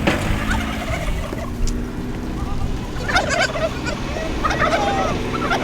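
A fowl, likely a farm bird, calling in two rapid warbling bursts, about three seconds in and again about four and a half seconds in, over an engine running steadily.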